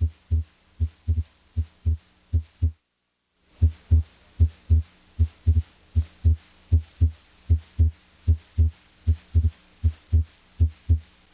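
Heart sounds heard through a stethoscope's diaphragm over the aortic area: a regular lub-dub of S1 and S2 in steady pairs, where S2 is usually louder than S1. The sound cuts out for under a second about three seconds in, over a faint low hum.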